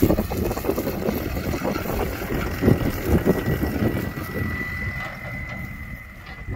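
Ford F-250 pickup engine running as the truck drives past and away, with wind buffeting the microphone. A thin high whine rises in the middle, and the sound eases off near the end as the truck moves off.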